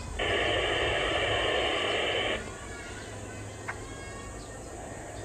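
A loud, steady buzzing drone that stops abruptly a little over two seconds in, leaving quieter outdoor ambience with a single short click.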